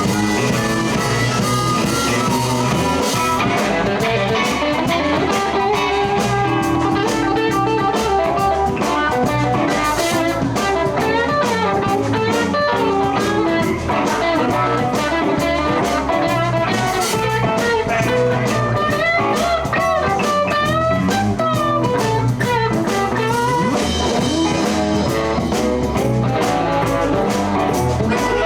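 Live blues band playing an instrumental passage, with electric guitar leading over drum kit and bass, and bending, wavering lead notes.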